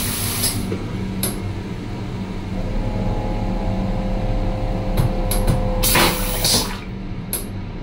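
A train's stainless-steel vacuum toilet flushing: a hiss of rinse water as it starts, then a steady whine that builds for a few seconds, then a loud whoosh of suction about six seconds in, with a few sharp clicks of the mechanism. The steady low rumble of the train runs underneath.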